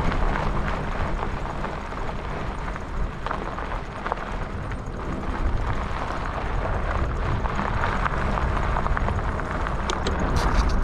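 Wind rushing over the microphone and tyres rumbling on a dirt road as an e-bike is ridden, with a few sharp ticks near the end.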